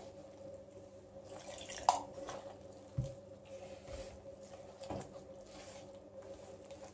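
Hands kneading soft yeast dough in a plastic bowl: faint squishing with a few soft knocks about a second apart, over a low steady hum.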